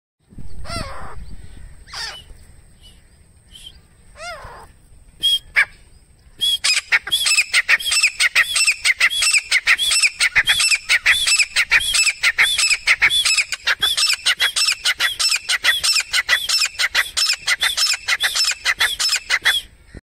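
Grey francolin calling: a few single calls, then from about six seconds in a fast, steady run of shrill repeated notes, about four a second.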